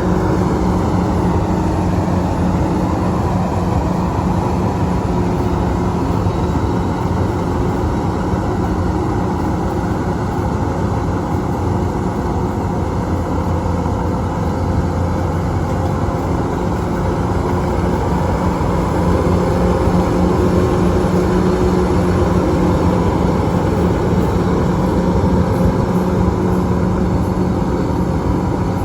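Engine of a rice-harvesting machine running steadily under load, with a constant low hum and mechanical noise and no pauses.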